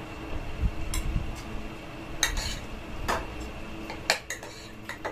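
Spoon clinking and scraping against a small ceramic bowl and dishes, several sharp separate clinks over a few seconds.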